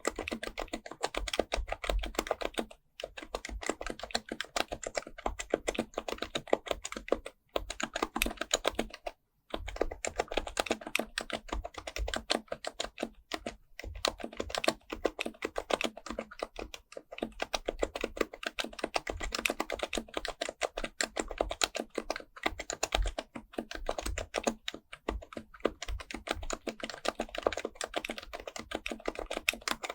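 Continuous fast typing on an HHKB Professional Type-S keyboard with Topre electro-capacitive switches: a dense run of soft keystroke clicks, with short pauses about three, seven and nine seconds in.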